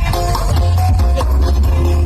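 Loud electronic dance music played through a sound horeg, a huge stacked sound system, with very heavy, pulsing bass.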